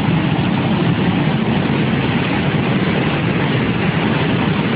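Loud, steady rushing roar of a muddy flash-flood torrent pouring through a concrete channel.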